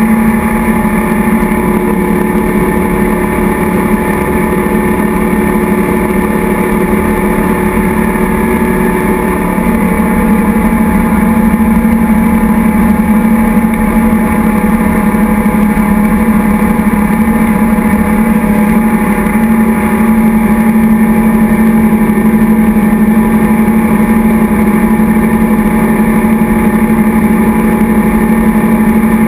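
Tow boat's engine running steadily at speed, with a constant rush of wake spray and wind noise over it; the engine note changes slightly about ten seconds in.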